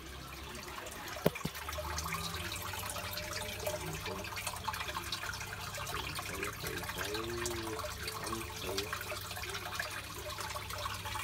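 Water trickling and bubbling in an aquarium tank, over a low steady hum. One sharp knock about a second in.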